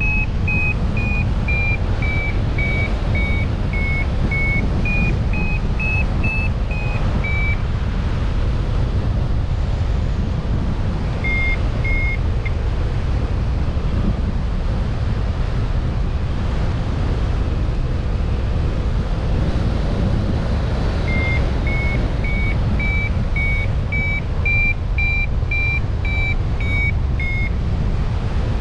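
Runs of short electronic beeps, about two a second, whose pitch steps up and down. They stop for a few seconds at a time, over a steady low rumble of wind noise.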